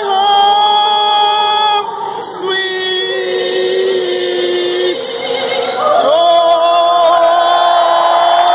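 A solo singer's voice over a ballpark's public-address system, holding long wavering notes. The last note is reached by an upward slide about six seconds in.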